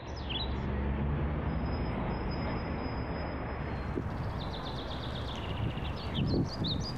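Outdoor ambience: a steady low rumble and hiss with birds chirping, the chirps clustering near the start and again over the last couple of seconds. It swells up out of silence during the first second.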